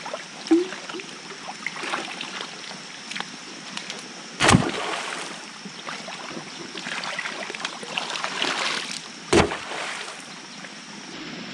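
Water sloshing and splashing as green bamboo poles are lifted out of shallow muddy water and someone wades through it. Two sudden loud thumps come about four and a half and nine and a half seconds in.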